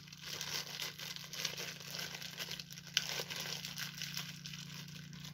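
Crinkling and tearing of a small plastic wrapper being handled and opened, with many small crackles and a sharp click about three seconds in.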